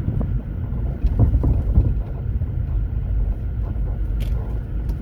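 Car cabin noise while driving: a steady low engine and road rumble, with one sharp click about four seconds in.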